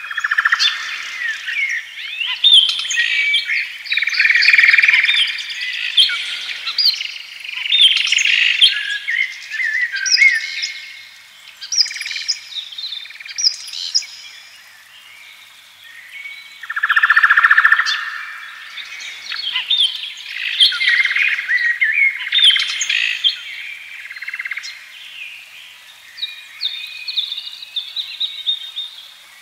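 Several songbirds chirping and calling together in a busy chorus of quick, high chirps and short whistled glides, swelling and fading in waves every few seconds.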